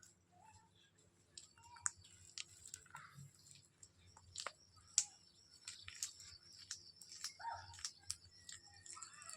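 Pet ringneck parrots clicking and crunching with their beaks in a steady scatter of sharp clicks, with two short soft chirps, near 3 s and 7.5 s.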